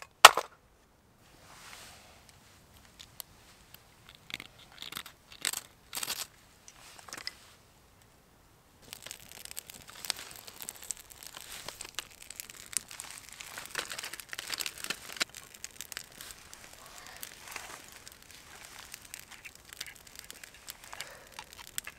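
A sharp knock just after the start and scattered crunches and handling noises for the first few seconds. From about nine seconds in, a continuous dense crackle of tinder and split kindling catching and burning in a small wood fire.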